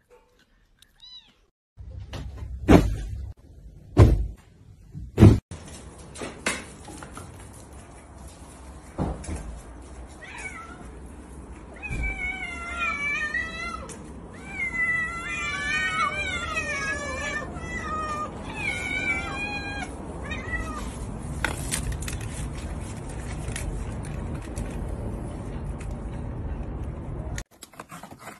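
Several silver tabby kittens meowing over one another, with many high, wavering, repeated meows, while a plate of food is held above them. A few loud knocks come before the meowing starts, over a steady low hum.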